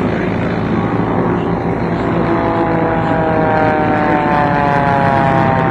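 Formula One air racer's small four-cylinder aircraft engine droning at race power as it flies past, its pitch falling from about halfway through, over a steady low rumble.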